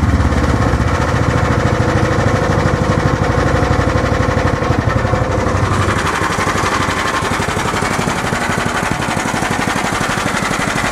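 Single-cylinder overhead-valve Honda GX420-clone engine in a golf cart idling steadily around 1200 rpm, low because its governor is bypassed, shortly after a cold start. About halfway through it is heard from close by the exhaust, which rattles a little.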